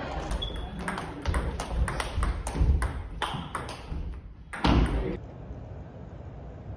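Rapid, sharp hits of indoor racket sports: badminton rackets striking shuttlecocks, then table tennis balls clicking off bats and table, several taps a second echoing in a gym hall. A heavier low thump comes about two-thirds of the way through.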